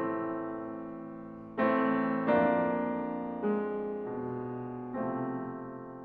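Steinway D concert grand piano playing slow chords, each struck and left to ring and fade: one already sounding at the start, then four more, about a second and a half in, shortly after, near the middle and about five seconds in.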